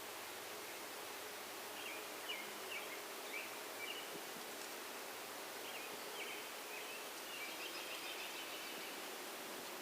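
Outdoor nature ambience: songbirds chirping in short repeated phrases, twice in a row, over a steady hiss.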